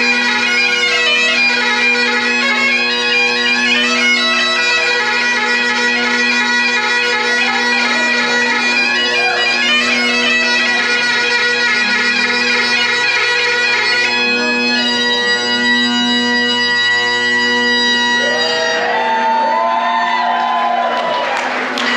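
A Great Highland bagpipe played solo: steady drones under the chanter's melody. Near the end the melody gives way to a few gliding notes and a burst of noise while the drones keep sounding.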